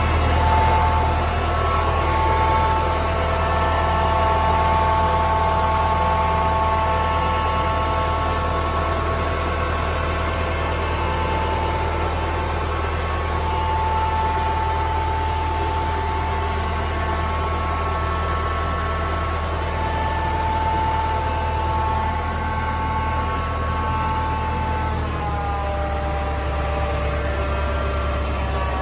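Link-Belt truck crane's engine idling steadily, a low hum with a steady whine over it; near the end the pitch drops slightly.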